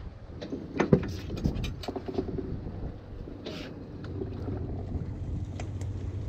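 Steady low rumble of wind and boat noise, with a quick cluster of knocks and clicks about a second in and a short hiss about three and a half seconds in.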